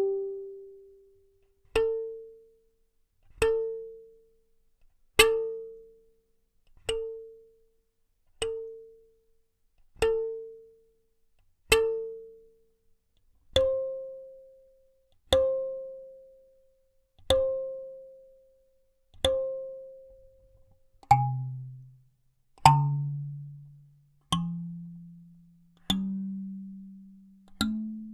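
Kalimba (thumb piano) played one note at a time, a tine plucked about every 1.7 seconds, each note ringing out and fading before the next. Each pitch comes a few times before moving on; in the last third the notes drop low and then climb step by step.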